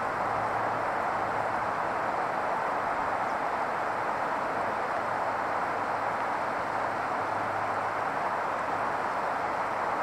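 Steady, even rushing outdoor noise with a faint low hum underneath; no bird calls stand out.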